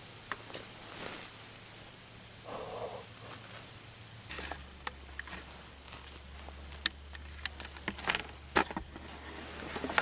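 Faint rustling and scattered sharp ticks and snaps, as of movement in dry leaf litter and twigs. There is a short muffled sound about two and a half seconds in, and a low steady hum begins about four seconds in.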